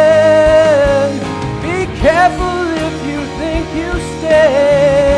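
A man singing a worship song over a recorded backing track with guitar and drums: he holds a long note that ends about a second in, a short instrumental fill follows, and another long held note comes in near the end.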